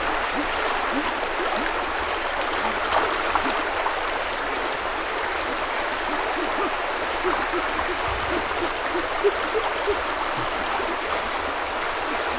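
Fast-flowing stream rushing steadily, an even wash of running water.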